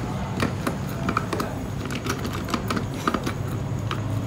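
Irregular light metallic clicks and knocks as the armature of a PS120 starter motor is lowered and pushed into its housing, over a steady low hum.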